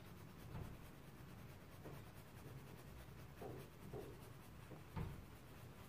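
Faint strokes of a paintbrush on canvas, blending oil paint: several soft brushes spread out, the loudest about five seconds in.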